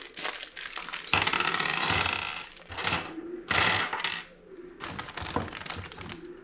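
Small metal mounting hardware (U-bolts and acorn nuts) clinking as it is handled and set down, with many sharp clicks. Two louder rustling bursts of plastic packaging come about a second in and again past the middle.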